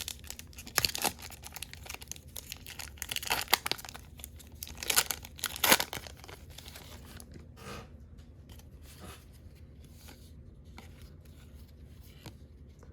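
Baseball card pack wrapper being torn open and crinkled, a dense crackle with its loudest rip about six seconds in. After that only faint rustles and taps of cards being handled.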